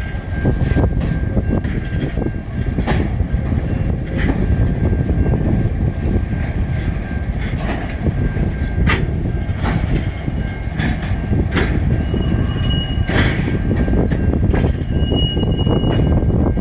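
Empty freight wagons of a train, ballast hoppers and coal wagons, rolling slowly around a curve: a low rumble of wheels on rail with irregular clanks, and a thin steady wheel squeal that rises to a higher-pitched squeal twice near the end.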